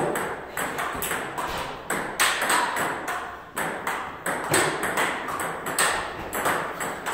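Table tennis ball clicking off paddles and table in fast, irregular rallies, a few hits a second. A second table's rally overlaps the first.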